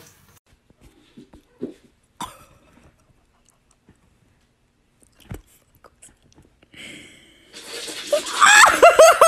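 A few faint short knocks and brief sounds, then, near the end, a person bursts into loud laughter in quick repeated gasps.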